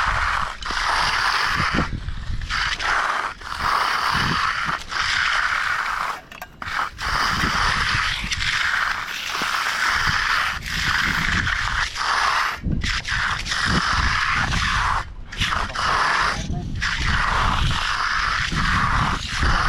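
A hand tool scraping through wet concrete in repeated strokes, roughly one a second.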